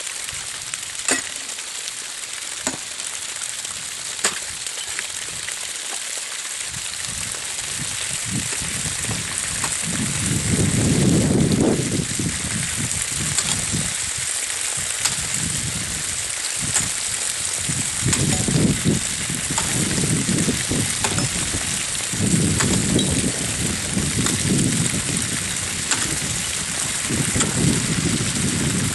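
A steady hiss throughout, with low gusts of wind buffeting the microphone from about eight seconds in. In the first five seconds there are a few sharp knocks of a hammer on brick.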